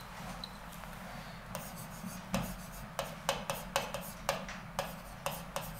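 Pen writing on an interactive whiteboard screen: a run of quick taps and short scrapes as the letters are drawn, starting about one and a half seconds in.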